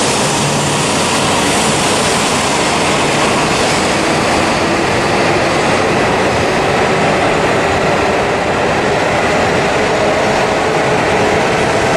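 E5 and E6 series Shinkansen set pulling out and running past close by: a steady, loud rush of wheel and air noise, with a faint motor whine coming in during the second half and rising in pitch as the train gathers speed.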